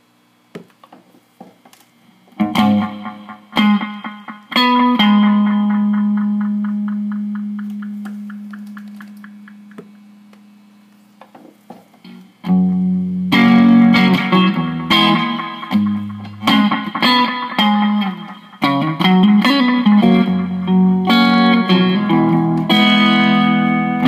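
Electric guitar played through an MXR Carbon Copy analog delay pedal into a small amp. A few chords are struck, then a long note rings and slowly fades with evenly spaced echo repeats. From about halfway through, chords are strummed continuously.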